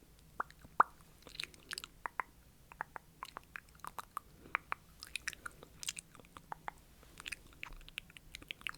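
ASMR mouth sounds close to the microphone: a run of irregular short, wet clicks and smacks of the lips and tongue, with the sharpest just under a second in.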